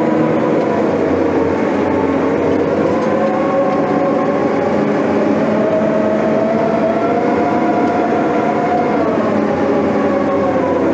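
Diesel engine of a heavy earthmoving machine running steadily under load. A whining tone climbs gradually through the middle and drops back about nine seconds in.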